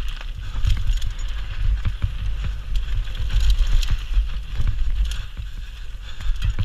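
Mountain bike descending a bumpy dirt singletrack at speed: a continuous low rumble of tyres over the ground with many sharp rattles and clicks from the chain and frame over the bumps.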